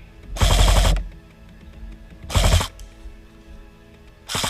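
Airsoft electric guns firing short full-auto bursts, a rapid even clicking: one burst about half a second in, a shorter one past the middle, and another starting at the very end.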